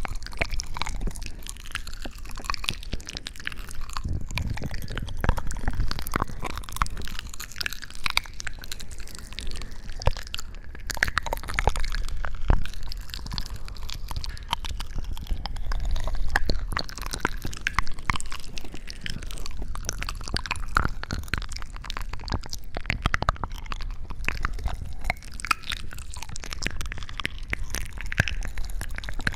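Close-miked ASMR trigger sounds: continuous wet crackling and crunching, dense with small clicks.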